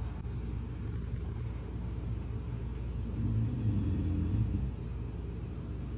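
A person snoring: one longer, louder snore swells up about halfway through, over a steady low rumble.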